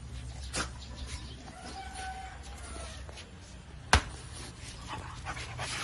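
French bulldog puppy sniffling and snuffling in short noisy breaths, with a faint, brief high whine about two seconds in and one sharp knock about four seconds in.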